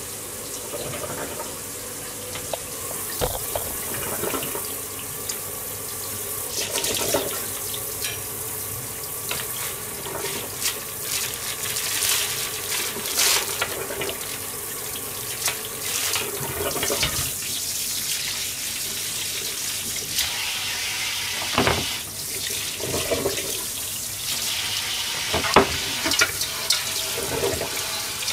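Kitchen tap running water into a stainless-steel sink while a pan and dishes are washed, with frequent short clinks and knocks of the cookware.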